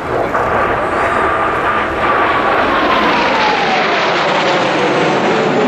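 A formation of Kawasaki T-4 jet trainers passing low overhead, their turbofan engines running loud. A whine in the jet noise falls steadily in pitch as they go by.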